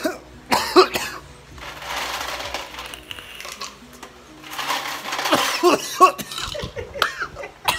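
A man coughing, breathing out hard and laughing after a draw on a vape, with a breathy stretch in the middle and bursts of coughing and laughter in the second half.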